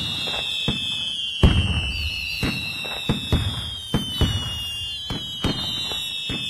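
Fireworks going off: several overlapping whistles slide slowly down in pitch while sharp bangs and crackles repeat about twice a second.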